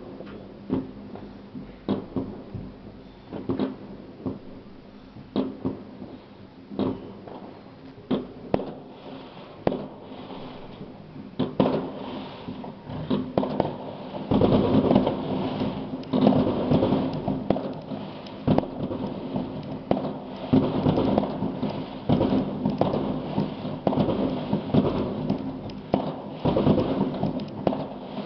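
New Year's fireworks going off across a town: separate distant bangs about once a second, thickening about halfway through into a dense, continuous rumble of overlapping explosions.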